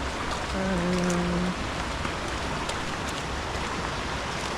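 Steady rushing water of a stream or waterfall. About a second in, a person's voice makes one brief sound over it.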